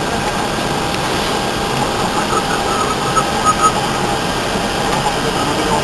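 Steady flight-deck noise of an Airbus A319 on approach: a constant rush of airflow and engine noise with a faint steady hum, and a few faint short tones about halfway through.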